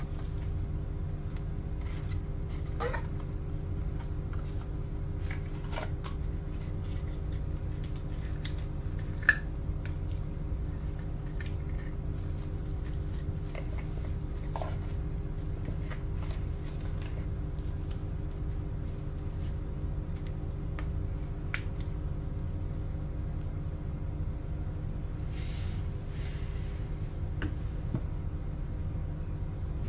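Cardboard box pieces, tissue paper and small accessories handled and set down on a table: scattered light clicks, taps and short rustles over a steady low hum. One sharper click comes about nine seconds in, and a longer paper rustle near the end.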